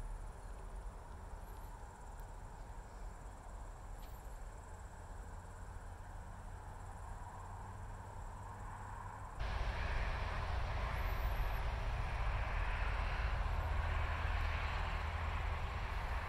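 Outdoor background noise, mostly a low wind rumble on the microphone. About nine seconds in it jumps abruptly to a louder, fuller rush, and a few faint high bird chirps come through.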